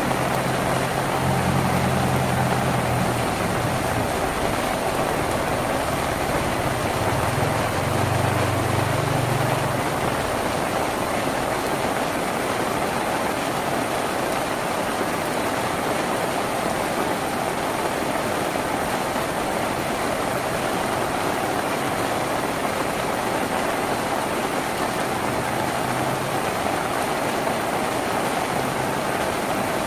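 Steady rain falling on a tin roof, an even hiss with no let-up. A low rumble sits underneath during roughly the first ten seconds, then fades out.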